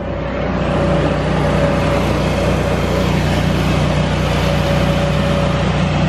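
Electric blower fan keeping an inflatable bounce house inflated, running steadily: a constant loud drone with one unchanging tone in it.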